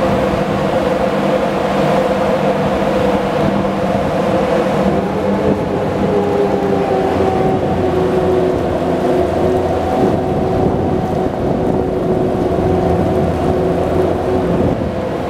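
Steady machinery drone aboard a ship, made of several held hum tones over a rushing haze. One higher tone sinks a little in pitch partway through.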